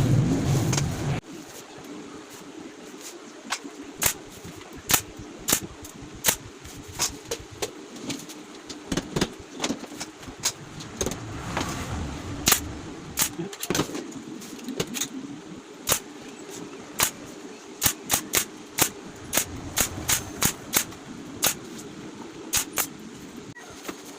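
Background music cuts off about a second in. Then comes a run of sharp, irregular clicks and taps, about one a second and sometimes in quick pairs, from hand work on a wooden flight case.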